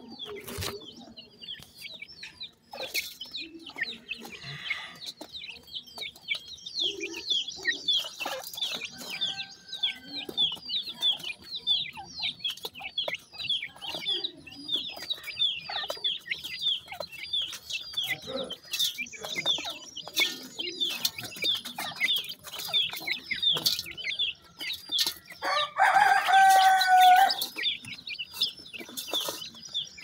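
A group of young gamebird chicks peeping continuously, short high-pitched peeps several a second, with clicks of pecking and scratching in dry soil. Near the end there is a louder, lower call that lasts about two seconds.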